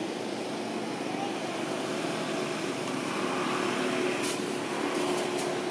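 Steady background engine noise with a faint hum, and a few short crackles about four seconds in and again near the end.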